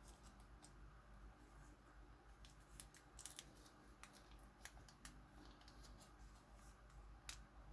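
Near silence with a few faint, scattered clicks and rustles of small model parts and their bags being handled.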